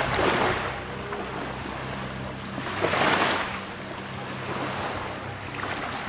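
A rushing, surf-like noise that swells twice, about three seconds apart, over a low steady hum.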